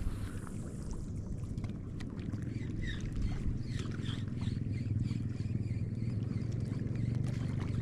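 Daiwa Sweepfire 3000 spinning reel cranked steadily to retrieve a lure: an even, low whir with faint clicking.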